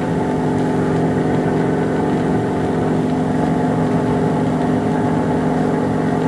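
Piston engine of a single-engine aerobatic propeller plane running steadily, heard from on board the aircraft, holding one even pitch throughout.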